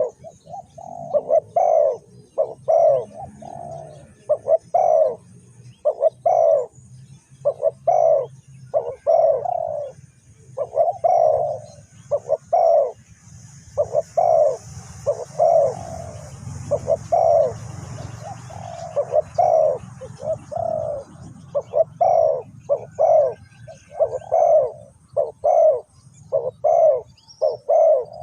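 Spotted doves cooing in repeated phrases of short low notes, with faint high chirps of small birds behind.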